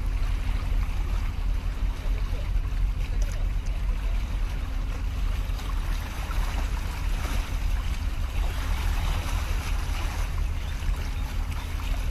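Wind rumbling on the microphone over the wash of sea water lapping against concrete breakwater blocks.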